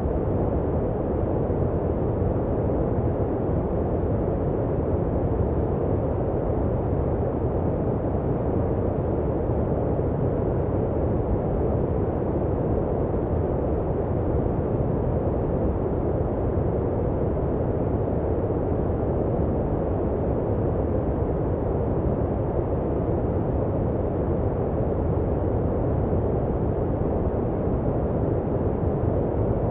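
Steady, unbroken generated noise of the kind sold as white noise for sleep, deep and muffled with little treble, closer to a rumbling brown noise than a bright hiss.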